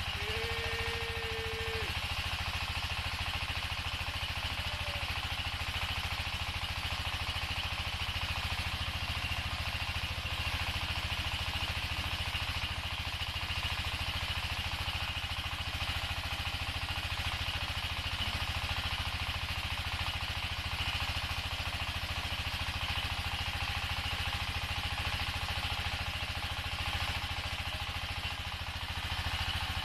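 Floating-feed pellet extruder machine running steadily, a constant engine-like drone with no change in speed. A short steady tone sounds briefly near the start.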